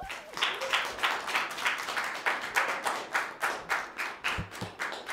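Hand clapping: applause at the end of a song, with distinct claps at about four a second.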